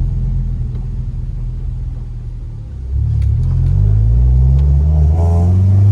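9th-generation Honda Civic Si's K24 four-cylinder engine driving: it eases back for the first few seconds, then about three seconds in the throttle opens and the engine pulls hard, its note rising steadily in pitch as it accelerates.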